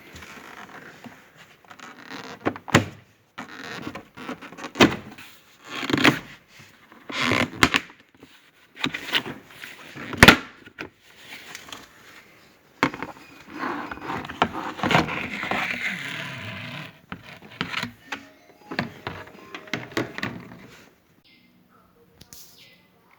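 Plastic car interior trim panels being pried loose and handled: a series of sharp clicks and knocks, with stretches of scraping and rustling.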